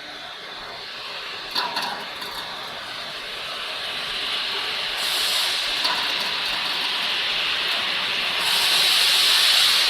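Bubble washing machine's automatic belt-lifting system running, a steady hiss that gets louder about halfway through and again near the end as the conveyor belt is raised, with a click early on.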